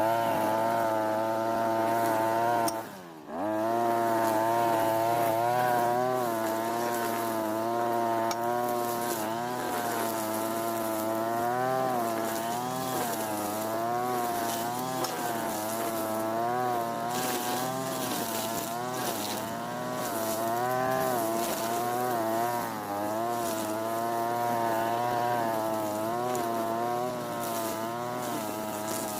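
Europa Hilt TB43 brush cutter's small two-stroke engine running at high revs, its pitch wavering up and down with the load. About three seconds in, the revs drop sharply and pick straight back up.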